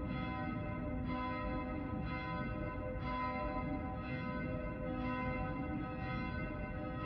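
Church bells ringing, a new stroke about once a second, each stroke ringing on into the next.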